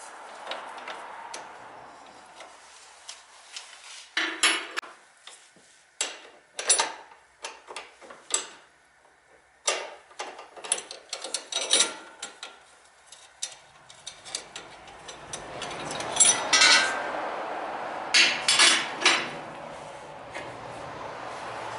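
Metal hand tools clinking and knocking against metal in irregular sharp clanks, the loudest two close together near the end, with a steady hum under the second half.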